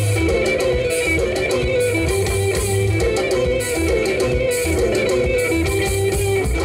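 Live band music: electric guitar playing repeated melodic lines over bass guitar and drums with regular percussion strikes.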